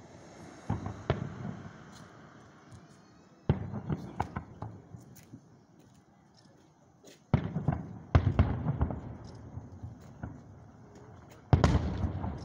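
Aerial firework shells bursting: sudden booms, each followed by crackling pops. They come in clusters about a second in, around three and a half seconds, twice close together around seven to eight seconds, and once more near the end.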